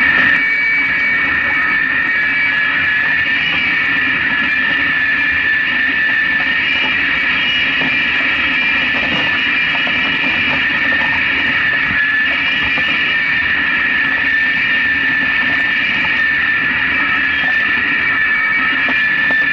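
A foiling Moth dinghy sailing fast in strong wind, with a constant high-pitched whine over steady rushing noise.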